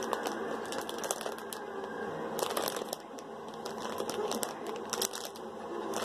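Plastic packaging bag crinkling as it is handled and turned over in the hands, a run of irregular sharp crackles.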